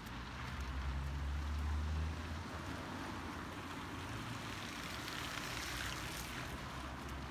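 Cars driving along a wet, slushy street, their tyres hissing on the wet asphalt. There is a low rumble over the first two seconds, and the hiss swells as a car comes close about five to six seconds in.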